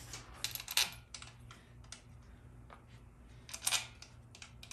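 Light clicks and taps from a hand working at a Dodge 48RE transmission's front pump as it sits in the case: a few sharp clicks about half a second in, scattered small ticks, then a short cluster of clicks about three and a half seconds in.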